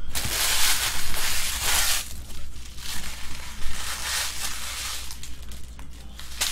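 Empty foil trading-card pack wrappers being crumpled and gathered up by hand: a run of loud crinkling rustles in several bouts, with small sharp crackles between them.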